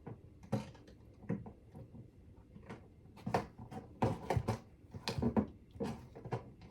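Irregular rustling, clicking and knocking from the prop's packaging being handled while the twist ties holding the scarecrow's body in its box are undone. The sounds grow busier from about four seconds in.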